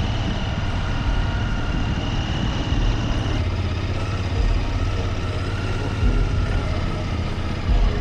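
Motorcycle engine running steadily, with wind rumbling on the microphone.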